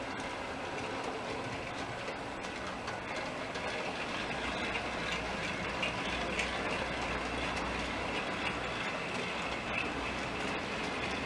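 Model railway trains running on the layout's track: a steady rattle and rumble of small wheels on the rails, with a constant high whine.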